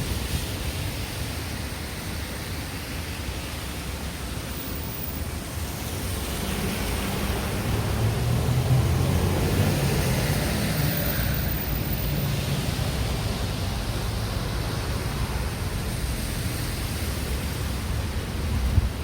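Steady outdoor road-traffic rumble and hiss, swelling a little in the middle as a vehicle passes.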